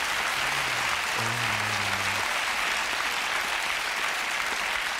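Studio audience applauding steadily. Early on, two low held musical notes sound over the clapping, the second lower than the first.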